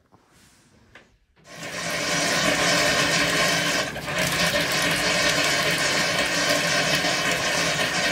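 Bathtub spout turned on, starting about one and a half seconds in: water gushes and spatters into the tub in a loud, steady rush, with a brief dip about four seconds in.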